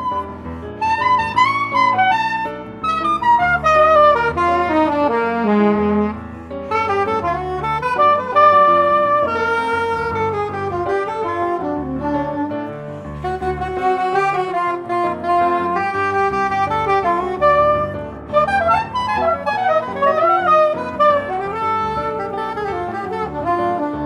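Soprano saxophone playing a transcribed jazz improvisation. The melodic line moves through quick runs of notes that climb and fall, with short breaths between phrases.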